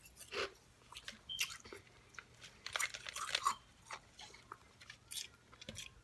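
A person chewing and biting food close to the microphone: irregular crunches and mouth clicks.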